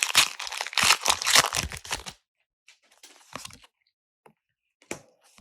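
Foil Pokémon booster pack wrapper being torn open and crinkled, a dense crackling rip for about two seconds, then a few faint rustles.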